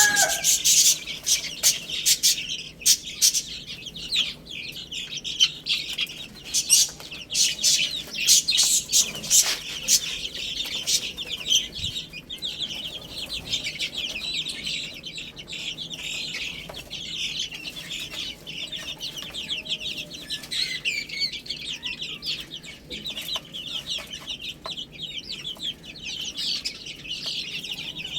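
Many baby chicks peeping together in a dense, continuous chorus of short high chirps, with scattered sharp taps among them.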